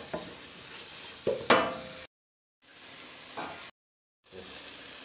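Onion, ginger-garlic and tomato masala sizzling in oil in a nonstick pan while a wooden spatula stirs it, with a few louder scraping strokes, the strongest about one and a half seconds in. The sound cuts out completely twice for about half a second.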